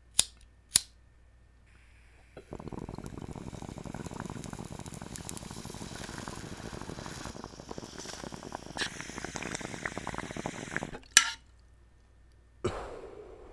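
Water bong bubbling as a long hit is drawn, a dense gurgle of rapid small pops lasting about eight seconds. It is preceded by two sharp clicks, and a single sharp click follows.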